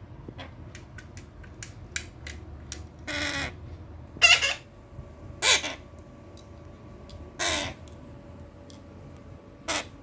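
Small pet parrot giving short, harsh squawks, five of them a second or two apart, with faint clicks in between.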